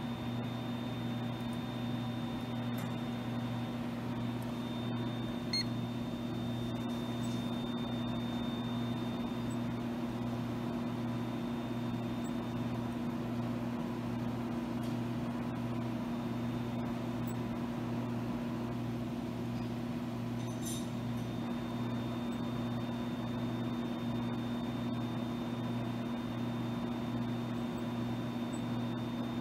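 Zeiss coordinate measuring machine running with a steady hum and a faint high whine while its probe measures a milled hole, with a few light ticks.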